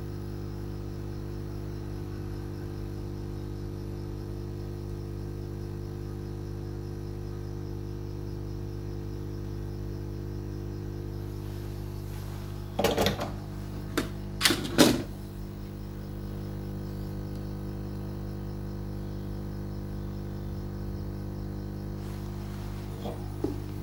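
Hot air rework gun running with a steady electrical hum while a 3.3 V regulator is desoldered from a TV combo board. About halfway through come a few sharp knocks and clatter as the tool is handled.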